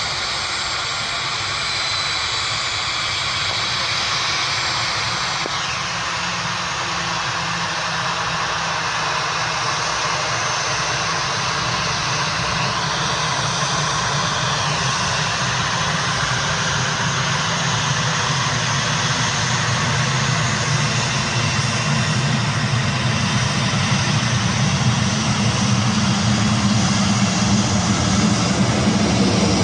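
Airliner jet engines running steadily, a hiss with a low rumble underneath that grows stronger and louder over the second half.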